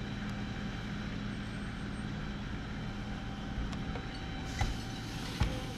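Steady drone of a vehicle engine running, a constant hum under a wash of noise, with two brief knocks near the end.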